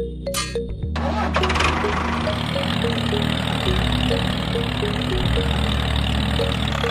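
A cartoon construction-machine engine sound effect starts up about a second in and runs steadily with a rattling clatter.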